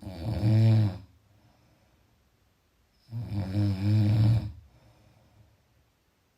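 Snoring: two loud, buzzing snores about three seconds apart, each lasting a second or so, with near quiet between them.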